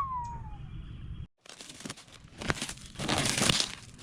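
Thick plastic packing wrap crinkling and tearing in uneven bursts as it is pulled and crumpled, loudest in the second half after a brief gap.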